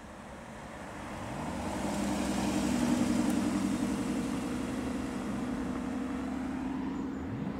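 Porsche Cayman's flat-six engine driving past at low speed and pulling away, getting louder as it passes about three seconds in, then running steadily as it moves off.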